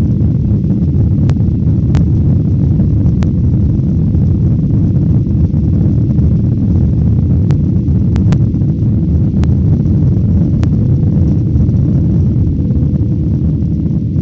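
Aircraft cabin noise: a steady, loud, low rumble of engines and airflow heard from inside the passenger cabin, with a few faint clicks.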